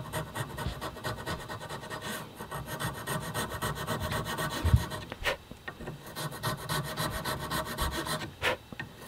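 A small half-round Swiss Grobet needle file (#00 cut) rasps in repeated strokes across a knife handle, sinking a carved line deeper and feathering out its shelf. The filing pauses briefly twice, and a single low knock sounds about halfway through.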